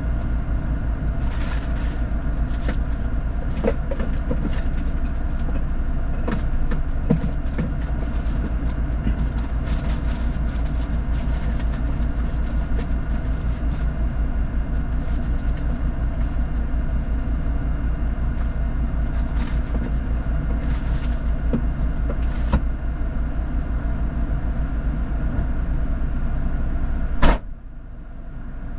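4x4 vehicle running steadily on an off-road track, with many short knocks and rattles throughout. A sharp click comes near the end, and the sound briefly drops quieter.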